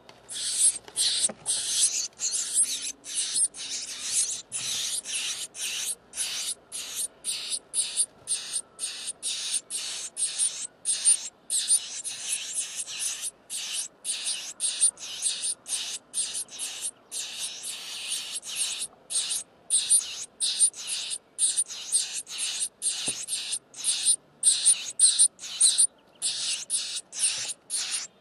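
Nestlings in a nest box screaming for food: a continuous rapid run of short, harsh, high-pitched begging calls, two or three a second.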